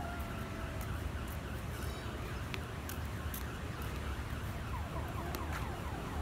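Outdoor ambience: a steady low rumble with runs of short, falling chirps starting about five seconds in, and a few scattered clicks.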